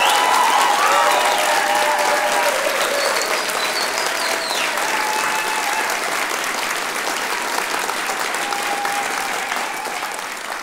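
Concert audience applauding and cheering, with a few shouts in the first couple of seconds and a whistle a few seconds in. The applause fades out near the end.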